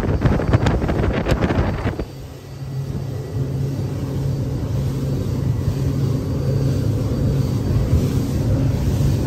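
Wind and water rushing past an X Shore electric boat running at about 32 mph. Rough, gusty buffeting for the first two seconds gives way to a steadier low rush.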